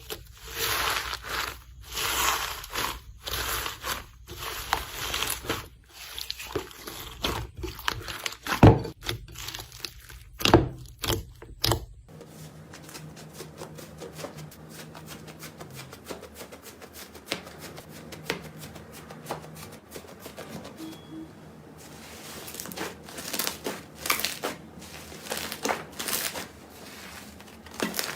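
Slime being squeezed and pressed by hand, making crackling, popping clicks. The clicking is louder and denser at first, then changes abruptly about twelve seconds in to a quieter, sparser run of clicks.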